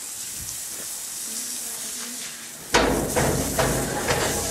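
A push broom sweeping a wet concrete floor. A steady faint hiss at first, then about two-thirds in a sudden louder stretch of irregular scratchy strokes over a low rumble.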